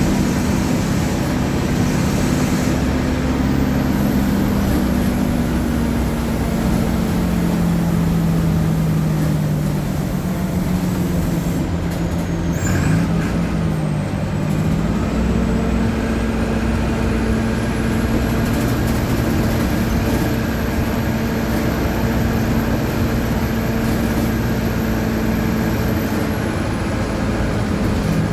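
Mercedes-Benz OF-1722M bus's four-cylinder turbo-diesel engine running under way. Its note drops about a third of the way in, breaks off briefly near the middle, pulls steadily again, and eases off near the end.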